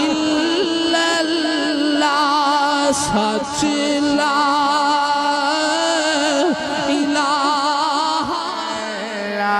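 A man singing long, wavering held notes with heavy vibrato into a microphone, in a Punjabi devotional kalam about the kalma.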